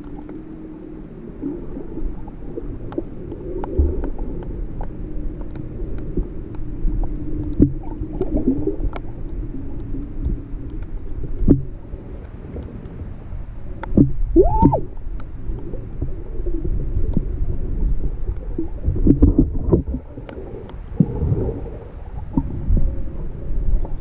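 Muffled underwater sound picked up by a GoPro held underwater: low rumbling water movement with scattered knocks and clicks, and a brief rising whine a little past halfway.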